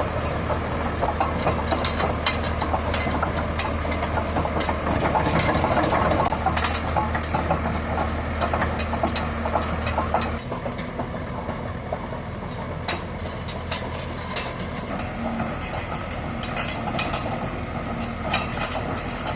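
Komatsu D31P crawler bulldozer's diesel engine running, with a steady stream of sharp clicks and clanks from the moving machine. About ten seconds in, the deep drone drops away and the sound gets a little quieter.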